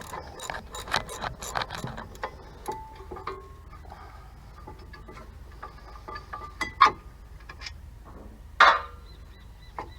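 Hand tools and metal parts clinking and knocking during brake work: a quick run of clicks and taps, some with a short metallic ring, then two louder clanks about seven and nine seconds in.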